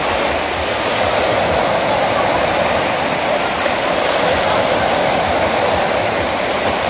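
Wave-pool surf: artificial waves breaking and churning in the shallows, a steady rushing wash of water.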